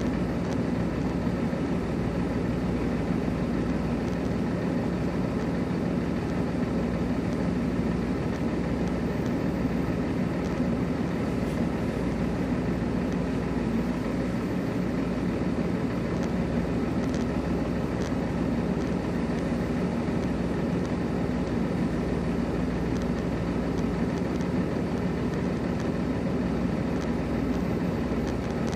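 Diesel engine idling steadily: a low, unbroken hum.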